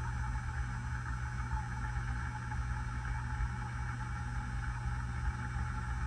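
Hunter low-profile ceiling fan running: a steady motor hum with a low, uneven rumble and a constant hiss, unchanging throughout.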